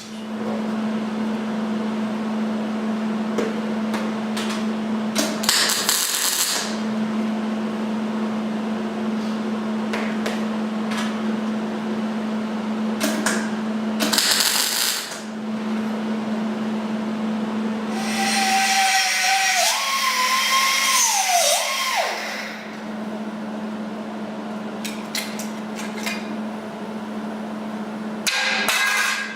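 Power tools working the car's sheet metal: a steady hum broken by harsh hissing bursts about 6 and 14 seconds in, and a longer one near the end with a whine that rises and falls.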